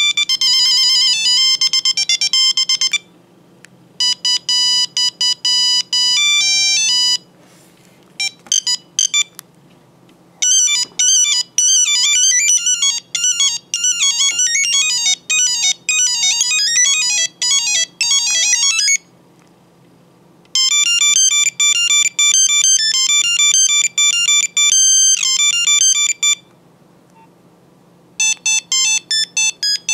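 Nokia 8390 cell phone playing its built-in monophonic ringtones through its small speaker: several short beeping melodies one after another, each stopping abruptly, with pauses of a second or two between them as the next tone is selected.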